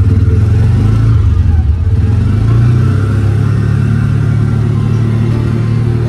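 Side-by-side utility vehicle's engine running steadily as it drives, a low drone heard from inside the cab.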